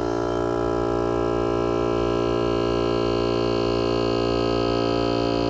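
Hermetic refrigeration compressor running with a steady electric hum, pumping up pressure into a gauge and regulator during a pressure test.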